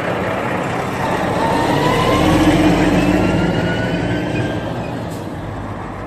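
Articulated fuel tanker truck driving past, its diesel engine rising in pitch as it pulls away, louder around the middle and fading towards the end.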